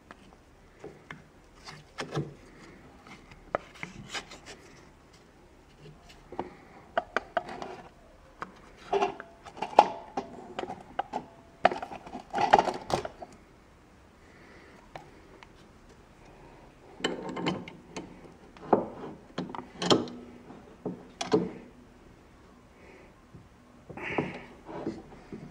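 Irregular clinks, knocks and rubbing as an aluminum block and wooden packing strips are fitted into a small bench vise and clamped, some knocks with a short metallic ring.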